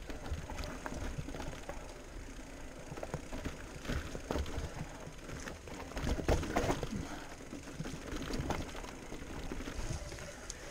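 Electric mountain bike rolling over a rough, rocky trail: the frame, chain and gear rattle and knock irregularly over a low rumble of tyres and wind. The knocking is thickest about four and six seconds in.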